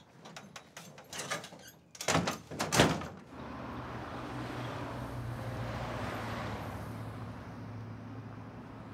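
Clicks of the latch on a sheet-metal door, then the door banged shut hard with several rattling bangs about two seconds in. After that comes a steady low hum of city traffic.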